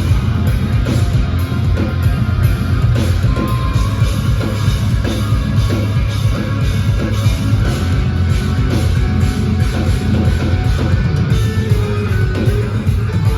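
Instrumental progressive metal band playing live at concert volume: heavy, low-tuned eight-string electric guitars over a drum kit, with a dense low end that never lets up.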